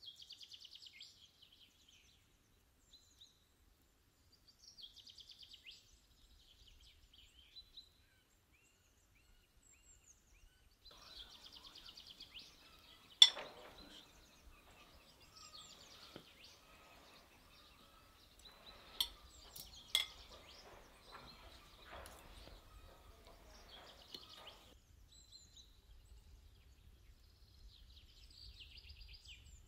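Cutlery clinking and scraping on a metal serving tray and plates, with three sharp clinks, the first the loudest, over quiet songbird trills that come and go.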